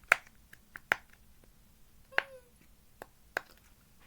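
Silicone pop-it fidget toy having its bubbles pressed: a string of sharp pops at an irregular pace, about seven in all. One pop a little past the middle is the loudest and has a short squeaky tail.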